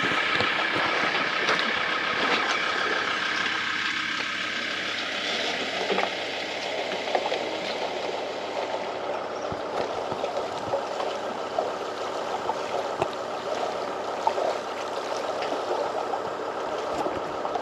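Water lapping and gurgling against a floating pontoon and the boat's hull, an irregular splashing wash, with a faint steady high-pitched hum behind it that is clearest in the first few seconds.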